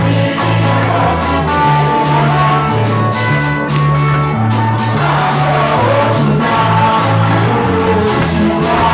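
Loud worship music: a band with guitar and bass playing a song, with singing over it.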